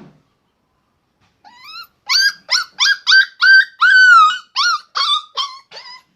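Puppy whimpering and yelping: after a moment of silence, a quick run of about a dozen high-pitched cries, roughly two to three a second, some sliding down in pitch, with one longer cry in the middle.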